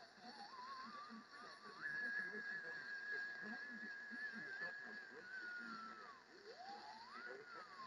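AM radio whistle over static, a single wavering tone bent by a hand at the set. It climbs in steps, holds high for a few seconds, slides down, then swoops back up and wobbles up and down.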